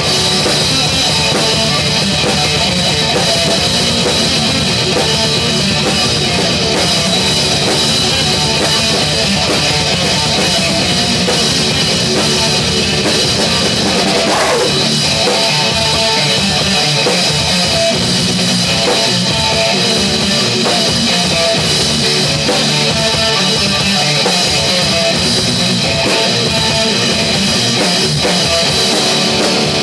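Rock band playing live: a drum kit and an electric guitar going loud and without a break.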